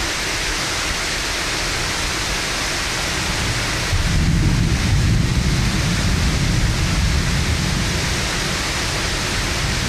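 Heavy rain pouring steadily in a thunderstorm. About four seconds in, a long low rumble of thunder rolls in and goes on for several seconds over the rain.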